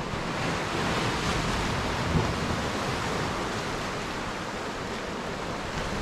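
Ocean surf washing on the shore, a steady rushing wash that swells a little over the first couple of seconds, with one small knock about two seconds in.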